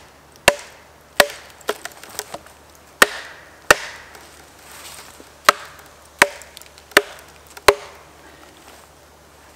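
An axe striking a maple log and the wooden wedges driven into its split, about a dozen sharp wooden knocks, each with a short ring, coming every second or less and sometimes in quick pairs. The blows stop near the end.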